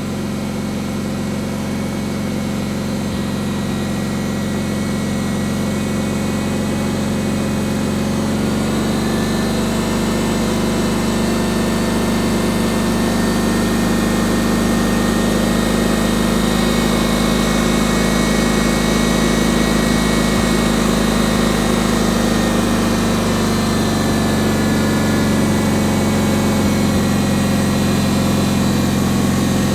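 Cub Cadet 1811 garden tractor engine running steadily, its pitch shifting slightly a couple of times.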